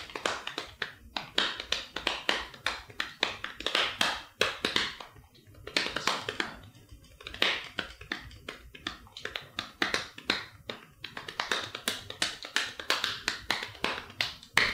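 Fingers tapping out a quick, uneven rhythm, several sharp taps a second with brief pauses: the incessant tapping of a drummer.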